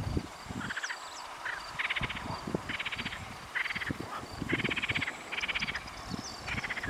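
Frogs croaking in a pond: a series of short rattling croaks, about eight of them, each a quick run of pulses.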